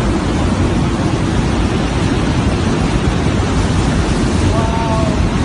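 Hurricane wind blowing hard against the microphone: a loud, steady rush with heavy low rumble. A brief pitched sound cuts in near the end.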